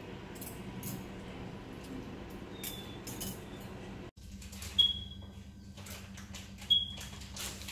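Light rustling and clinking as medical supplies and a catheter are handled, with two short high squeaks about two seconds apart in the second half.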